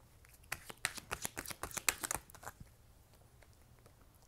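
Tarot cards being shuffled: a quick, uneven patter of light card clicks starting about half a second in and lasting about two seconds.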